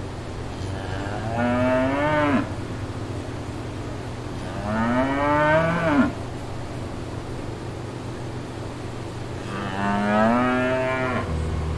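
A cow mooing three times, each moo about two seconds long, rising in pitch and then breaking off sharply. A steady low hum runs underneath.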